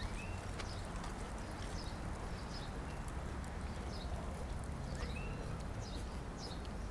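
Outdoor park ambience: a steady low city rumble with light, regular clopping steps, about two a second, and two short chirps, one at the start and one about five seconds in.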